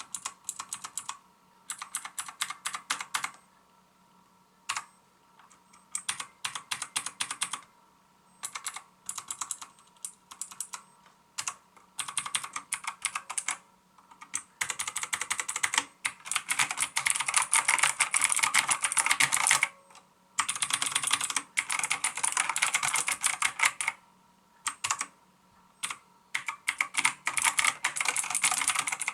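Typing on a Maxtill TRON G100K mechanical keyboard with blue clicky switches: rapid clacking keystrokes in bursts of a second or two with short pauses, turning into a long unbroken run of fast typing about halfway through.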